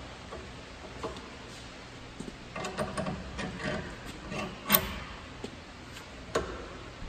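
Steel parts of a belt-grinder table frame handled and fitted together: light scrapes and clinks as a long hinge bolt is pushed through, with a sharper metal click about two-thirds of the way in and another near the end.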